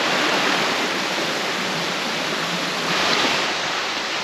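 Mountain stream rushing steadily over rocks, a constant even hiss of water.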